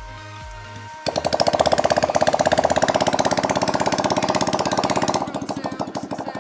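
Honda Click 125 single-cylinder scooter engine, bored up with a PCX 150 cylinder and 58 mm piston, starting on the first try about a second in with no exhaust pipe fitted. It runs very loud as a rapid chatter of firing pulses straight from the open exhaust port, then settles quieter about five seconds in.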